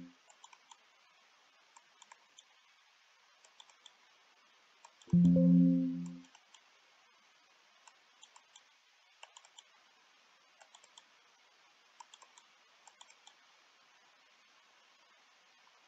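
Faint computer mouse clicks, often in twos and threes, as cards are played in bridge software, with one short chime about five seconds in that fades over about a second, the program's sound for a completed trick.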